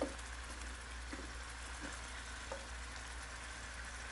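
A few soft knocks of raw carrot pieces being set by hand into a slow cooker's pot beside a roast, over a faint steady hiss.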